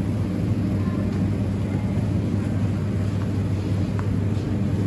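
Steady low hum and background noise of a supermarket's produce section, with no clear voices.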